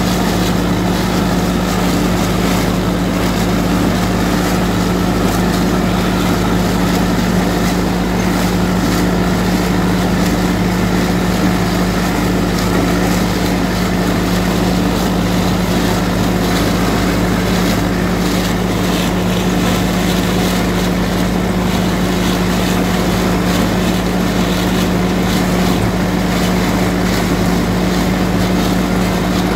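IMT 577 DV tractor's diesel engine running steadily under load while it pulls and drives a SIP Tornado 80 trailed corn picker through a row of dry corn, the picker's machinery running with it. A loud, even drone that holds one pitch throughout.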